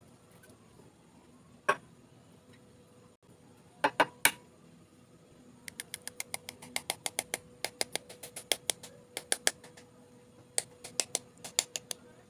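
A raw egg's shell being tapped to crack it: sharp clicks, one at first, then three close together, then a fast run of about four taps a second and a few more near the end.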